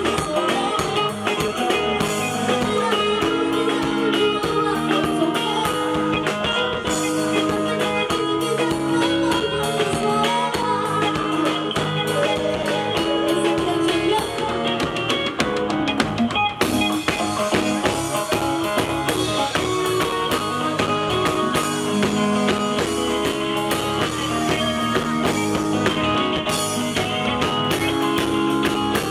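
Band music with guitar and drum kit playing steadily, with a little singing.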